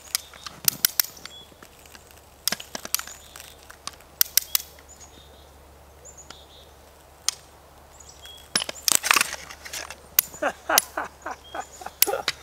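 Ratchet of a hand-cranked come-along clicking in short runs as it is cranked, putting tension on a rope tied to an aluminum tent stake driven into frozen ground; the clicking is densest and loudest in the last few seconds, as the stake breaks off.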